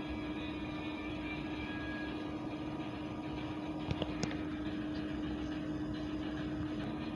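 Steady hum with one constant tone over an even hiss, and a few short clicks about four seconds in.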